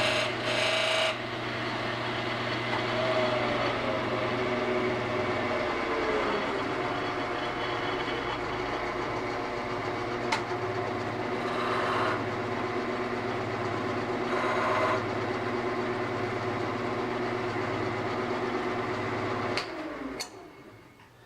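Wood lathe running steadily with a cedar blank spinning, with three short scratchy touches against the turning wood. The motor is switched off about a second before the end and the hum dies away.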